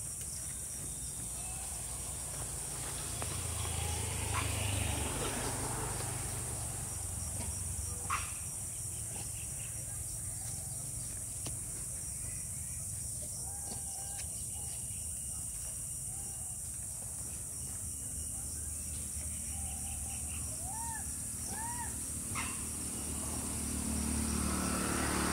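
Steady high-pitched insect chorus of crickets or cicadas in trees, with a low rumble that swells and fades twice and a few short bird chirps in the second half.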